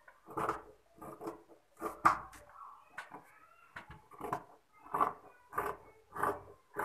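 Tailor's scissors snipping through layered blouse fabric (outer cloth and lining), a short crunchy cut roughly every two-thirds of a second.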